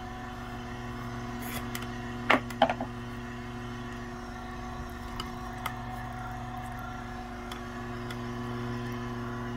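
Omega masticating juicer's motor running with a steady hum as its auger grinds pressure-cooked chicken into a paste. Two sharp knocks come a little after two seconds in, with a few faint ticks later.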